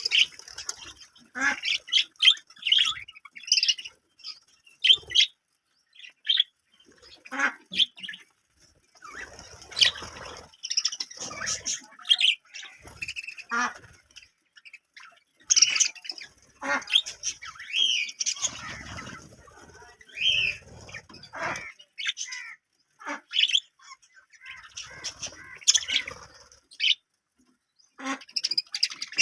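Budgerigars chirping and chattering in short, irregular bursts of high calls, with brief pauses between.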